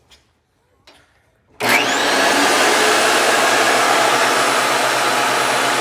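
Vevor benchtop thickness planer switched on about a second and a half in: its motor whines up to speed within a moment and then runs loud and steady.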